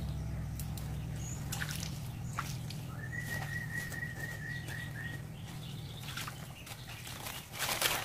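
Leafy twigs and dry leaves rustling and crackling as they are handled, loudest just before the end. About three seconds in, a bird calls a quick run of about eight short, even notes.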